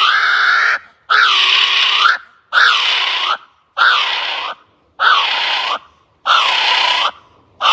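Kiwi giving its shrill whistling call over and over: a long call fades out, then a steady series of separate calls follows, each just under a second long and about one every 1.2 seconds, each dipping and then rising in pitch.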